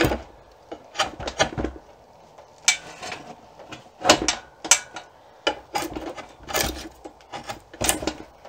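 Draw knife cutting along an Osage orange bow stave in a series of short, rough scraping strokes, tearing the crumbly early wood off and down to the late wood of the growth ring that will be the bow's back.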